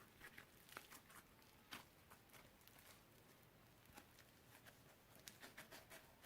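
Faint, scattered soft clicks and crackles of slime being pressed and stretched by hand.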